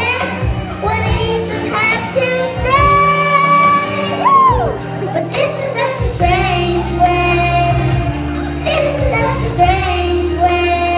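Children singing a song into microphones over instrumental accompaniment, amplified through the stage speakers; one long held note slides down and drops away about four seconds in.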